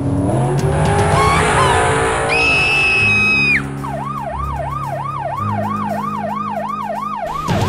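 Police siren in a fast yelp, rising and falling about three times a second, starting about halfway through over background music. Before it, a steady high tone sounds for about a second.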